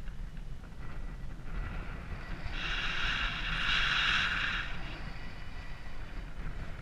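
Wind rushing over the camera microphone of a paraglider circling in a thermal: a steady low buffeting rumble, with a hissing rush that swells about two seconds in and dies away about five seconds in as the turn brings the airflow round.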